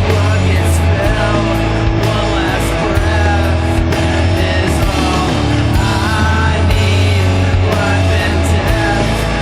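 Doom metal recording: heavily distorted guitars and bass with drums and cymbal hits, a dense, steady wall of sound.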